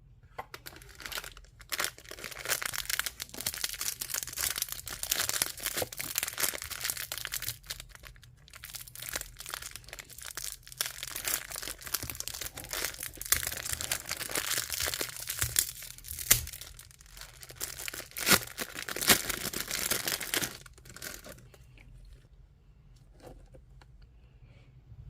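Packaging being handled and torn open: continuous crinkling and tearing for about twenty seconds, with a brief lull partway and a few sharp snaps near the end, then it stops.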